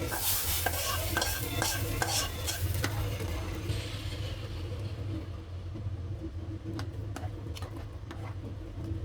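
A utensil stirring food in a frying pan, with quick clicks and scrapes against the pan over a sizzle during the first few seconds, then quieter with a few more taps near the end. A steady low hum runs underneath.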